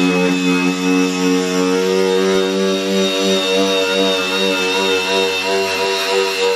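KEN brushless cordless angle grinder running steadily at speed, a constant motor whine with a high-pitched tone on top.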